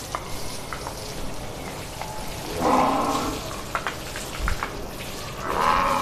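Water jet from a garden hose spraying onto buffaloes' backs and splashing onto the concrete floor, a steady hissing patter. It swells louder twice, around the middle and near the end, with a few small splashes between.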